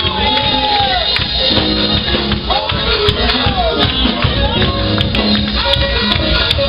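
Live church music with tambourine, loud and continuous, with gliding voices over it.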